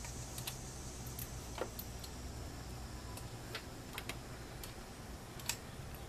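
Ratcheting box wrench being worked on a pulley bolt in the engine bay, giving about a dozen light, irregular metallic clicks, one sharper click near the end.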